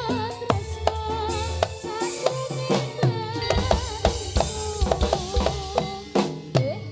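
Jaranan dance music: drums beating in quick, dense strokes under a wavering, bending melody line.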